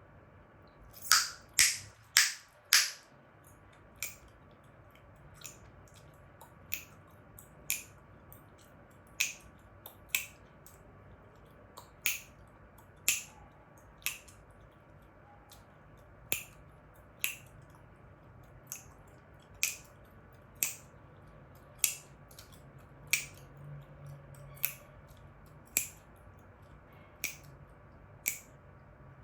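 Chewing gum being snapped and cracked in the mouth, making sharp pops. A quick run of four loud ones comes about a second in, then single cracks follow about once a second.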